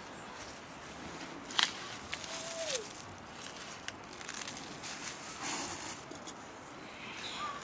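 Leafy greens being picked by hand: stems snapping and leaves rustling, with one sharp snap about a second and a half in and a longer rustle later on.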